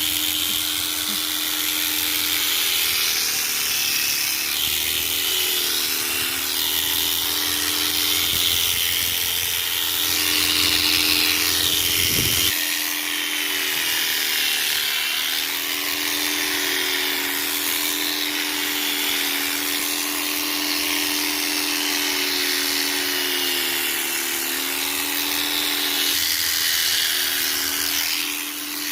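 Electric sheep-shearing clipper running steadily while it cuts, its motor hum wavering slightly up and down in pitch over a high buzzing hiss.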